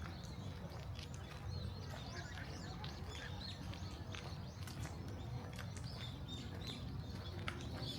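Small birds chirping repeatedly in quick, short calls over a low, steady murmur of distant people.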